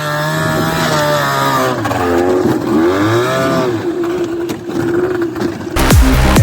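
Buran snowmobile's two-stroke engine running under load on a snowy climb, its pitch dipping and rising again as the revs change. Electronic music with a beat cuts in near the end.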